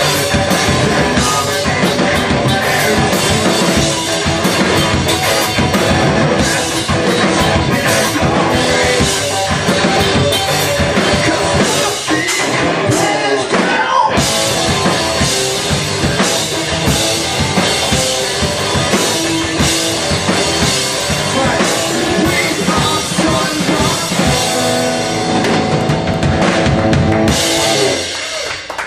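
Live rock band playing loud: electric guitar, bass guitar and a drum kit, with the song ending about a second before the close.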